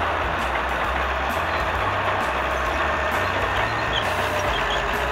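Truck-style diesel engine sound effect running steadily for a toy forklift, with a low rumble that rises and falls slightly.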